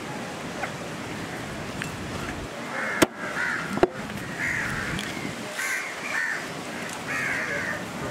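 Crows cawing, a string of harsh calls repeated every second or so through most of the stretch. Two sharp knocks come a little under a second apart, about three seconds in.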